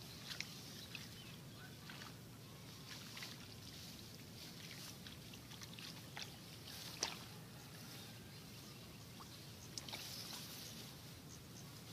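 Faint rustling and snapping of rice plants and weeds being pulled by hand from a wet paddy, with soft sloshing in the muddy water; scattered crackles, the sharpest about seven seconds in.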